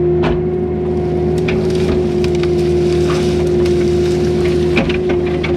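A 304 mini excavator's diesel engine running steadily with a constant hum, its machine working through brush, with a handful of short sharp cracks and knocks scattered through.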